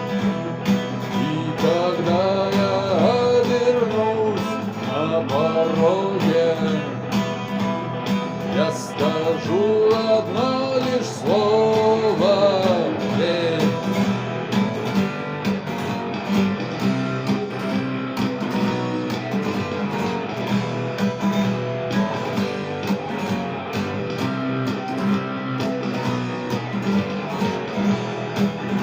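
Music: a guitar-accompanied rock song cover. Steady strummed guitar runs throughout, with a gliding melodic line over it that stops about halfway through, leaving the guitar alone.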